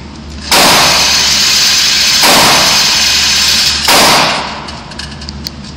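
Three very loud gunshots in an indoor shooting range, evenly spaced about a second and a half to two seconds apart, each ringing on in the range's echo. The last one fades out over about a second.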